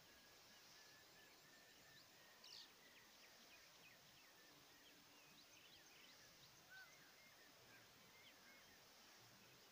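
Faint chorus of distant birds chirping and whistling in short calls over a steady low hiss of open-air ambience, with two slightly louder calls, one about two and a half seconds in and another near seven seconds.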